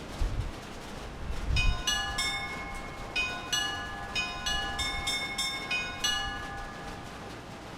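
Orthodox church bells rung by hand in a quick chiming pattern: small bells of several pitches struck about three times a second, ringing on, then stopping. Steady rain hiss runs underneath, and two low thumps come just before the chiming starts.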